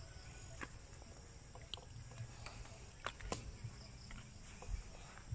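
Faint outdoor ambience: a steady high insect drone, like crickets, with scattered small clicks and crackles, and a low rumble underneath.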